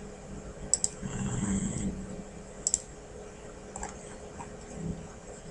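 A few computer mouse clicks, each a quick double tick of button press and release, spaced a second or two apart, as menus are clicked through on screen.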